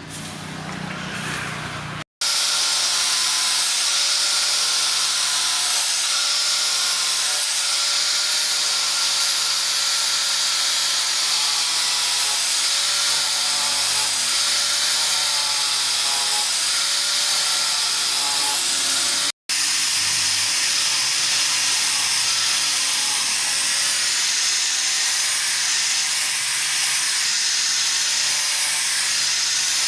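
A loud, steady hiss with a faint wavering whine under it. It starts abruptly about two seconds in and drops out for an instant near the middle.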